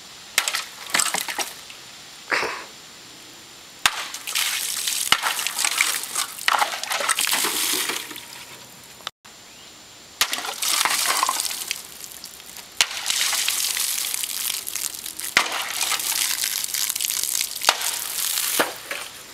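A 12-inch chef knife slashing through water-filled plastic milk jugs: a few short sharp cuts near the start, then long stretches of water gushing and splashing out of the sliced jugs.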